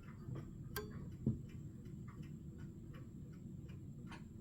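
Faint, scattered clicks and light handling noise over a low steady hum, with one slightly louder click about a second in.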